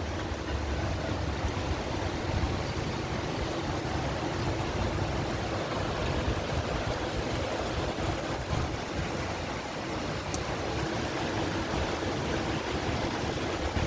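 Heavy rain falling steadily in a storm, a continuous hiss with some wind.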